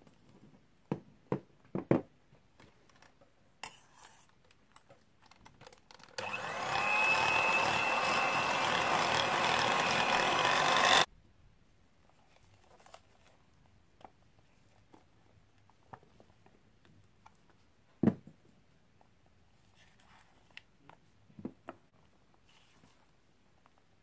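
An electric hand mixer runs for about five seconds, spinning up at the start and cutting off suddenly. Before and after it, a silicone spatula scrapes and taps against a stainless steel bowl, with one louder knock late on.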